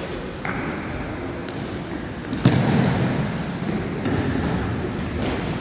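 A football kicked hard on the indoor court: one sharp thump about halfway through that rings on in the large hall's echo. A fainter knock comes a second earlier.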